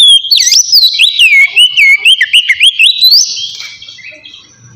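Oriental magpie-robin singing a fast run of loud, clear whistled notes that sweep up and down, in the open 'ngeplong' style. The song stops about three seconds in.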